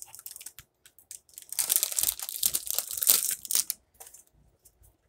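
Crinkling and rustling of paper and packaging being handled, with a loud stretch of crinkling in the middle and small rustles before and after.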